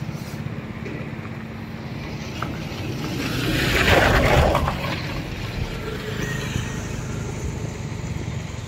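Road traffic going by, with one vehicle passing close about four seconds in, its noise rising and fading.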